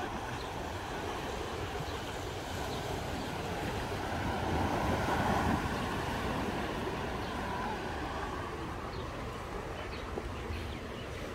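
Small ocean waves washing onto a sandy beach, with wind buffeting the microphone. The surf swells louder about halfway through.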